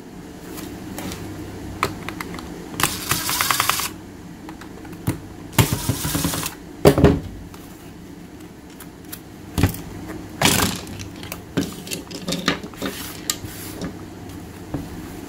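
DeWalt DCF887 cordless impact driver run in several short bursts, the first a second-long fast hammering rattle, backing screws out of a burnt-out impact wrench's plastic housing, with sharp clicks and clatter of the screws and housing parts in between.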